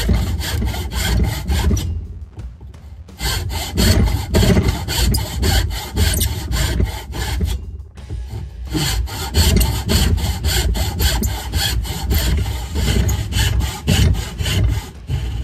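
Brass-backed backsaw cutting across a wooden board in quick, even back-and-forth strokes, pausing briefly twice as it moves on to the next kerf. These are relief cuts through the waste of a hand-cut dado, made so the waste can then be knocked out with a chisel.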